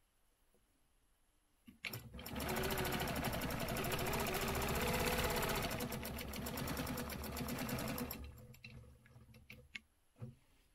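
Longarm quilting machine stitching: after about two seconds of quiet the machine starts, runs a rapid, even stitch rhythm for about six seconds as the hopping foot follows an acrylic ruler, and winds down and stops near the end.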